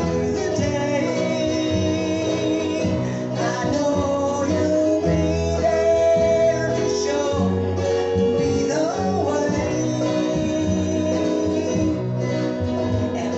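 Live gospel group performing a country-style song: guitar accompaniment with a bass line and singing.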